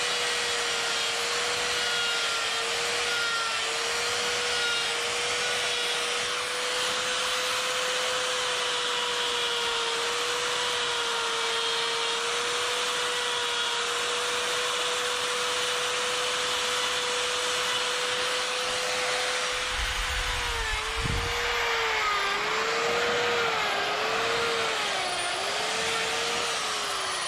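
Electric die grinder spinning a flame-shaped burr, a steady high whine, carving lines into wood. In the last few seconds the pitch wavers and dips repeatedly as the burr bogs under load in the wood.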